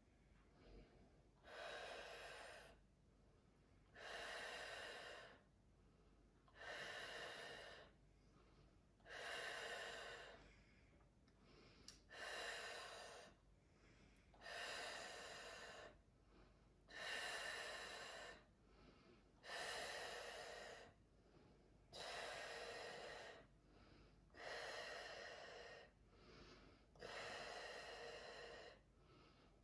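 A woman in labour breathing slowly and deeply to cope with her contractions: soft, even breaths, each about a second long, one every two and a half seconds.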